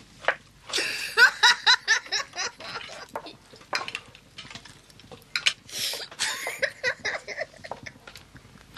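A boy laughing uncontrollably in repeated fits of rapid giggling, each fit a quick string of short laughs.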